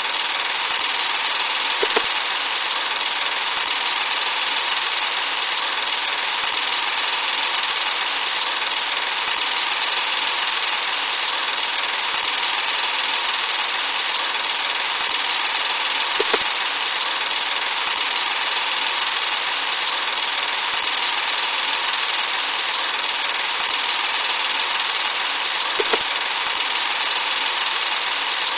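Old-film sound effect: a steady hiss of worn film noise with three sharp pops, about two seconds in, midway and near the end.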